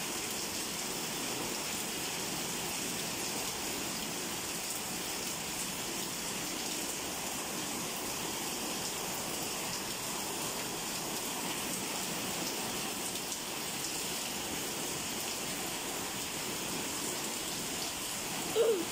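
Heavy rain pouring down steadily, an even constant hiss. Near the end there is one brief, louder pitched sound that dips in pitch.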